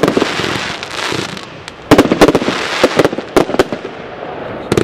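Big Box firework cake firing shots: clusters of sharp bangs as the shells launch and burst, at the start, about two seconds in and again around three seconds, with a hiss between the bursts.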